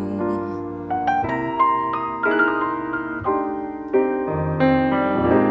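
Solo piano playing a slow ballad interlude: chords struck every half second to a second, each left to ring and fade before the next.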